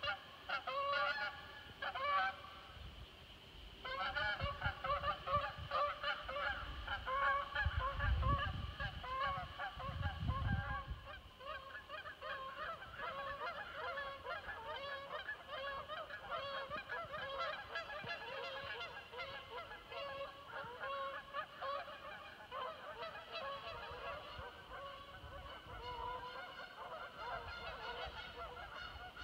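A flock of geese honking, many calls overlapping without a break. A low rumble rises and falls from about six to eleven seconds in.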